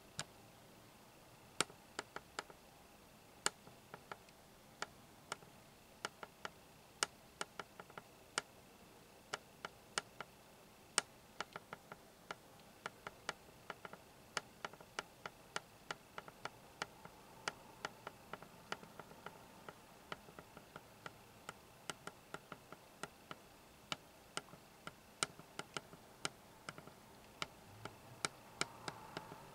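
Irregular sharp clicks, roughly two or three a second and uneven in spacing and strength, over a faint steady hiss.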